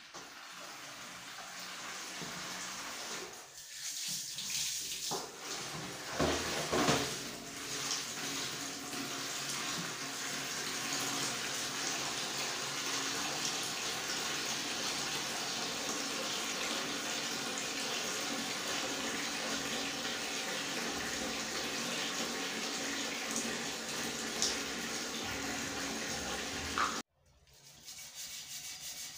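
Tap water running into a plastic basin: a steady splashing rush that cuts off suddenly near the end.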